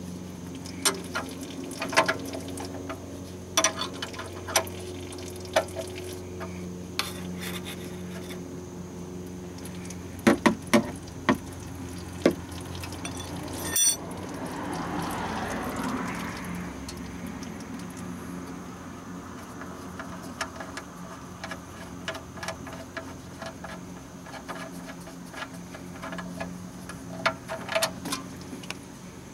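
Metal clicks and clinks of a wrench working a car's oil pan drain plug loose by hand. About 14 seconds in a sharp click is followed by a rush of engine oil pouring out for a few seconds, then more scattered clicks.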